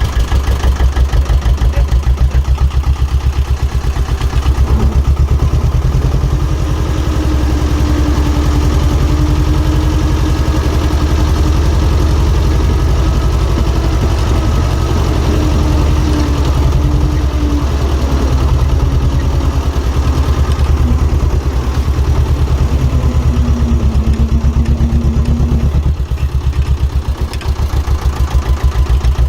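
Diesel engine of working plant, an excavator or site dumper, running steadily, with a thin whine that shifts in pitch through the middle.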